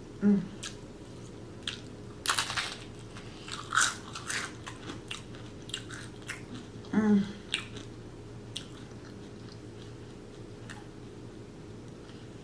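Close-up bites and chewing of fried crab rangoon, the crispy wonton wrapper crunching in a series of irregular crackles, busiest in the first half.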